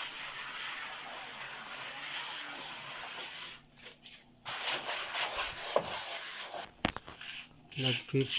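Steady gritty scraping of sand and cement being worked by hand, with a break of about a second partway through. A sharp knock comes near the end.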